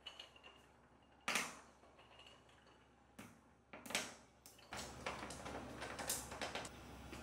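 A few sharp knocks and splashes as hard clams are dropped into a small saucepan of hot water, then a stretch of light clinking and sloshing as wooden chopsticks stir them in the pot.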